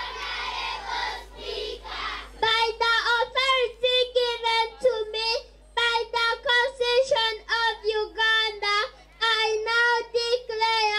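Murmur of a crowd for about two seconds, then a young girl singing into a microphone: one high, clear child's voice in short, level-pitched phrases with brief pauses.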